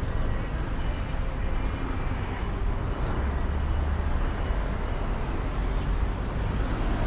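City street traffic: a steady hum of passing cars and engines, with a heavier low rumble from a vehicle going by about three seconds in.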